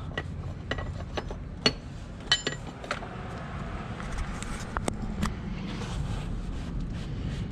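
Scattered sharp clicks and light knocks of a hand tool and a plastic oil filter housing being worked loose in a Lamborghini Gallardo's engine bay, over a steady low rumble.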